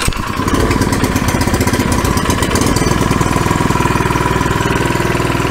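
Harbor Freight Predator 79cc single-cylinder OHV engine catching on the second pull of its recoil starter and running steadily and fast, unloaded, with the throttle set off idle. It is the engine's very first start with fuel and oil.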